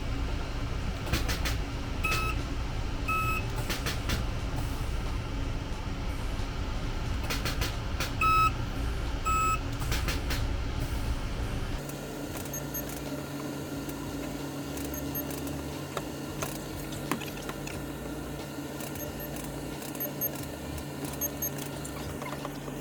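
Body-shop machinery noise with clicks and four short electronic beeps, then a steady low hum with faint ticking from about twelve seconds in.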